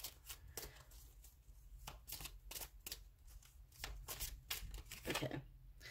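Tarot cards being shuffled by hand: a quick, uneven run of soft card clicks and slaps, about three or four a second.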